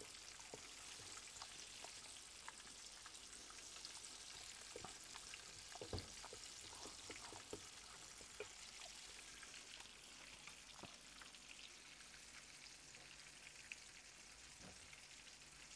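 Apple fritters frying in shallow oil in a skillet: a faint, steady sizzle with scattered small crackles, and a light knock about six seconds in.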